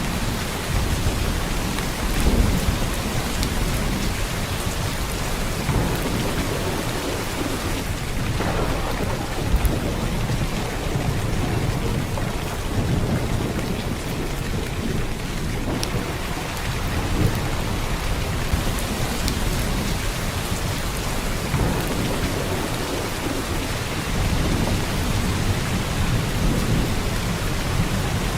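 Heavy downpour of rain, a dense steady hiss of drops on surfaces. Low rumbles swell and fade underneath it several times, like distant rolling thunder.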